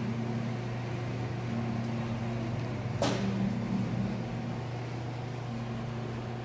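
Steady mechanical hum of kitchen equipment, with a single sharp knock about three seconds in.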